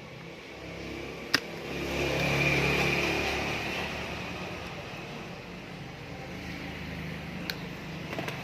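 Engine noise from a passing motor vehicle, swelling over a couple of seconds and fading slowly, with a sharp click about a second in and a few lighter clicks near the end.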